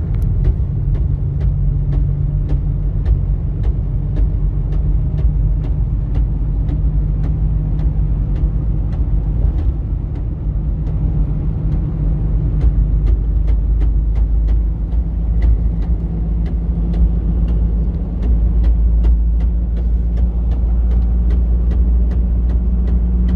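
Ford Ranger 3.0 Power Stroke four-cylinder turbodiesel pickup heard from inside the cab while driving: a steady low drone with a loud, evenly spaced clicking from the manual gear lever and transmission tunnel. The noise seems to come from the gearbox, though the customer's guess of the gearbox turned out to be wrong and its source lies elsewhere.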